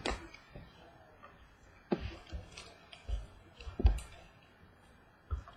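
Baseball trading cards being handled and set down on a table: about five light, irregularly spaced knocks and clicks.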